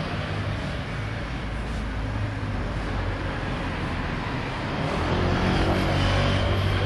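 City street traffic: vehicles running on the road alongside the pavement, a steady rumble that swells louder about five seconds in.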